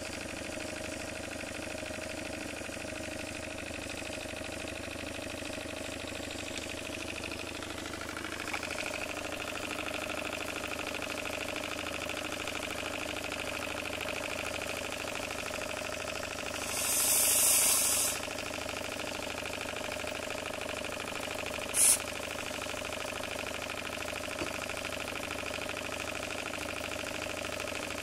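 Single-cylinder model horizontal steam engine with a brass cylinder running steadily on live steam. About 17 s in, a one-second hiss of steam is heard, with a shorter hiss near 22 s.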